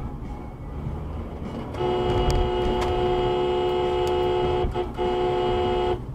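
Car horn held down for about three seconds, breaking off briefly and then sounding again for about another second before it stops, over the low rumble of a car driving on the road.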